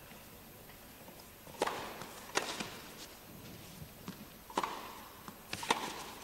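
Tennis ball being hit by rackets and bouncing during a rally on an indoor court: a series of sharp pops roughly a second apart, each with a short echo from the hall.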